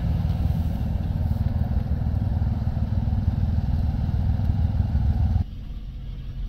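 A vehicle's engine and road rumble as it rolls slowly forward, heard with the side window open. About five seconds in the sound drops suddenly to a quieter engine hum inside the cab.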